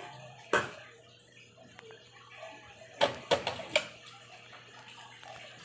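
Metal spatula clanking against a steel frying pan: one sharp knock about half a second in, then a quick run of four or five knocks about three seconds in.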